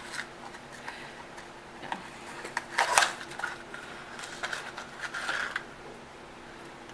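Small clicks, taps and rustling of things being handled on a table, with the loudest clatter about three seconds in and a short hissy rustle a little later.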